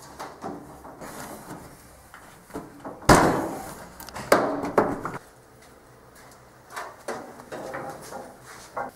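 Knocks and clatter of hard objects being handled, with one loud bang about three seconds in, a few sharper knocks over the next two seconds, and quieter rattling near the end.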